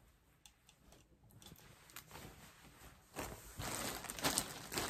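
Plastic packaging crinkling and rustling, starting about three seconds in after a few faint clicks, as a clothing item is handled.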